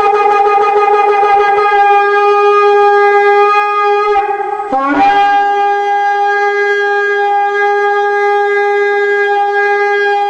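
Long, steady horn blasts with a trumpet-like held tone. The first blast ends about four and a half seconds in, and the next starts right after with a brief rise in pitch and holds steady.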